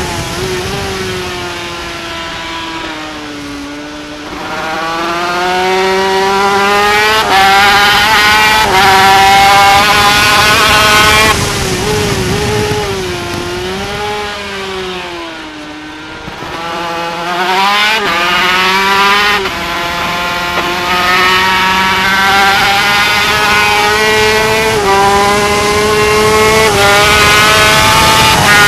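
Yamaha TZ250 two-stroke racing engine at full throttle heard from on board, revving up through the gears with several quick upshifts, the pitch dropping sharply at each. Twice, about four seconds in and again around sixteen seconds, it eases off and the note sags and quietens for a corner before the engine picks up and climbs again.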